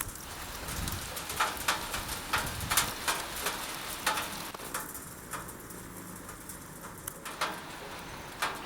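Water dripping from melting ice in the rain: irregular sharp drips and splashes, roughly one or two a second, over a steady hiss of rain.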